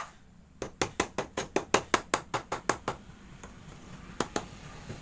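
Steel tube and white plastic connectors of a portable wardrobe frame knocking together as they are handled during assembly: a quick run of sharp knocks, about seven a second for a little over two seconds, then two more near the end.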